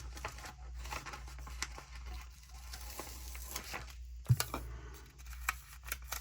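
Paper sticker sheets rustling and crinkling with small light clicks as a sticker is peeled from its sheet, with one sharper tap about four seconds in.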